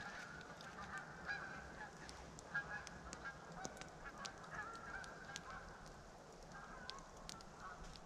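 A flock of geese honking faintly as it flies past, the calls repeating in short runs.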